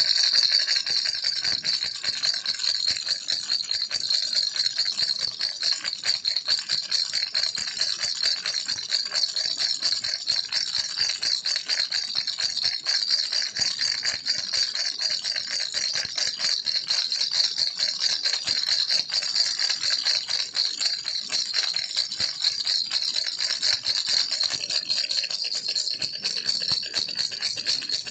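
A baby's toy rattle shaken without a break, a dense, steady stream of tiny bead clicks.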